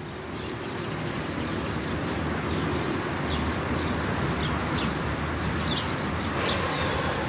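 Steady outdoor background noise like distant traffic, with a few faint, short, high bird chirps scattered through it.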